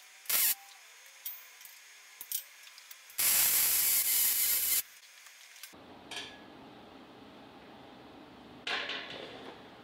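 Welding arc tacking a steel tab onto square steel tube: one steady crackling hiss lasting about a second and a half, starting about three seconds in.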